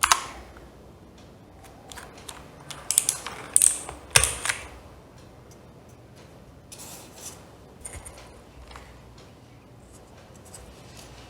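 Scattered sharp clicks and clacks from the XPG Infarex K20 mechanical keyboard, coming in irregular clusters. The loudest come at the very start and around three to four and a half seconds in, with fainter ones near the end.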